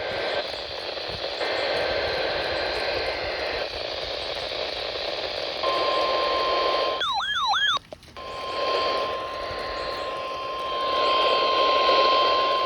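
Weather radio receiver hissing with static on a weak NOAA Weather Radio signal. About halfway through, a steady 1050 Hz alert tone comes in over the static and holds, the warning tone that precedes a broadcast alert message. It is broken briefly by a short warbling electronic tone while the static dips.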